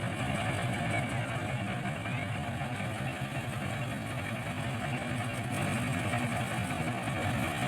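Engine of wheat-harvesting machinery running steadily at constant speed.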